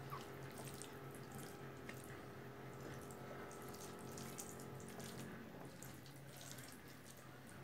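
Fingers mixing rice and spinach on a plate, heard as scattered faint soft ticks over a steady low hum and hiss.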